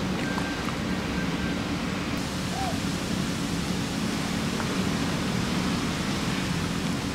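A steady rushing background noise, even and unchanging throughout, heaviest in the low range.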